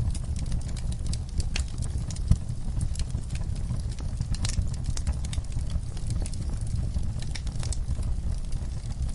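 Wood fire burning in a fireplace: a steady low rumble of flames with frequent sharp crackles and pops, one louder pop a little over two seconds in.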